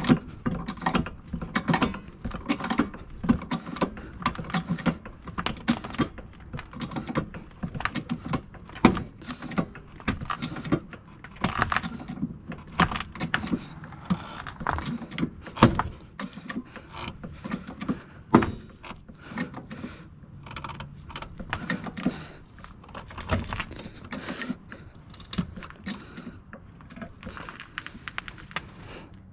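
Wheel lug nuts on a car being loosened with a wrench: a long run of irregular metallic clinks, clanks and knocks.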